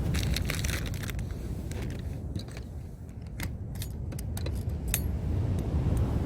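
Small sharp metallic clicks and clinks from fishing tackle being handled after a catch, scattered irregularly over a steady low outdoor rumble.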